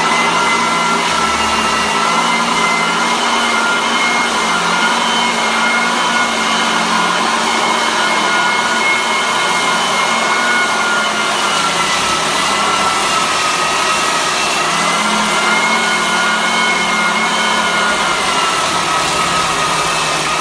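Floor sanding machine running steadily: a loud motor and fan whine over hiss, its pitch sagging slightly a couple of times as the machine takes load.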